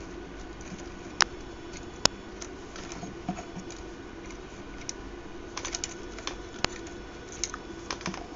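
Scattered computer keyboard and mouse clicks: single clicks, then a quick run of key taps about five and a half seconds in, over a faint steady hum.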